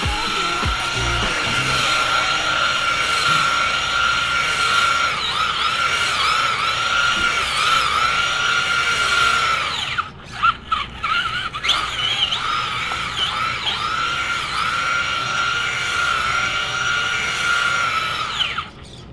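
Traxxas Slash RC truck's electric motor whining as it does donuts on concrete, the pitch dipping and rising with the throttle. It cuts out for a couple of seconds about halfway through, winds back up, and stops shortly before the end.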